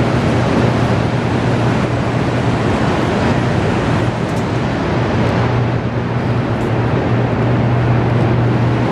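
Loud, steady rumble of water rushing through a 30-foot Hoover Dam penstock pipe, with a constant low hum underneath.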